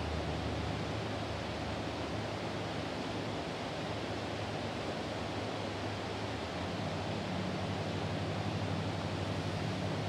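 Steady outdoor background noise, an even rushing hiss with a faint low hum underneath; no eagle calls are heard.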